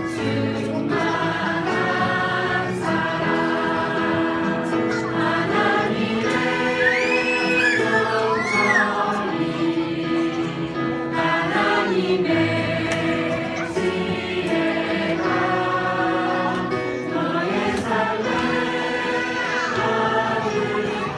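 A mixed choir of men and women singing a Korean children's praise song together, held notes moving in a steady melody.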